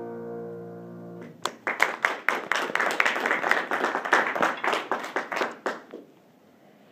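The final piano chord of the accompaniment rings and fades, then a small group claps for about four seconds and stops.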